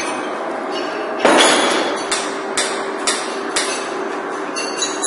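Machine-shop noise: about a second in a loud clatter and a steady machine hum start, followed by four sharp metal knocks about twice a second.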